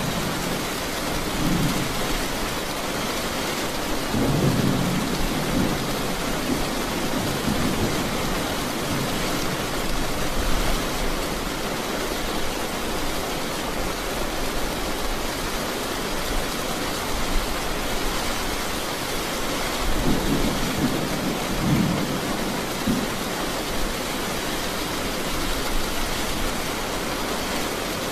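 Steady rain falling on pavement, with low rolling thunder rumbling a few seconds in and again about twenty seconds in.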